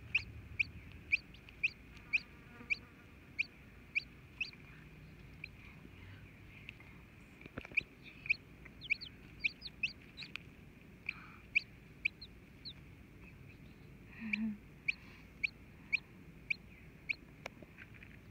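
Newly hatching chick peeping from inside its pipped egg: a run of short, high, falling peeps, about two a second, with a couple of short pauses. About fourteen seconds in, the brooding Silkie hen gives a brief low cluck.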